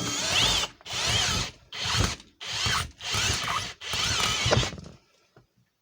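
Electric drill boring into a Master padlock, run in about six short bursts with brief pauses between them and a whine that rises and falls in pitch. It stops about five seconds in, leaving only a few faint ticks.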